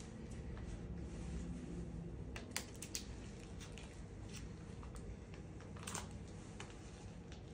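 Faint rustling and a few sharp clicks from gloved hands handling medical supplies, mostly around the middle, over a steady low hum of the treatment room.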